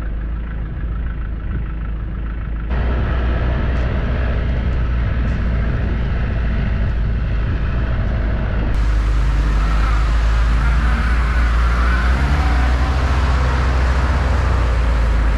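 Car driving on a snow-covered road: a steady deep rumble of engine and road noise. The sound changes abruptly about three seconds in and again near nine seconds.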